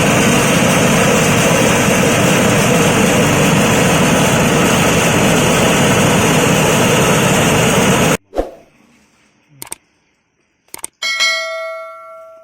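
An electric leaf chopping and grinding machine running loud and steady, which cuts off abruptly about eight seconds in. A few light knocks follow, then near the end a single metallic ring that fades away.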